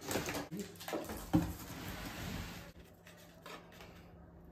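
Packaging being handled as a new children's bike is unboxed: rustling plastic and cardboard with light clatter, and one sharp knock about a second and a half in.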